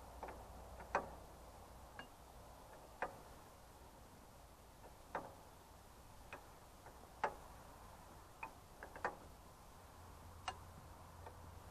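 Sharp metallic clicks of a spanner on the nuts of an Ursus C-330's hydraulic lift control valve, coming irregularly about once a second as the nuts are tightened.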